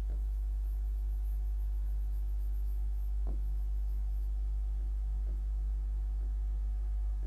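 Steady low electrical hum under quiet room tone, with a couple of faint soft taps about three and five seconds in.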